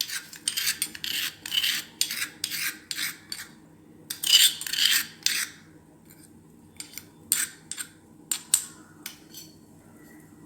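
A spoon scraping the crushed spice mixture out of its bowl into a pot of water near the boil: a quick run of rasping scrapes, two more after a short pause, then a few light clicks and taps.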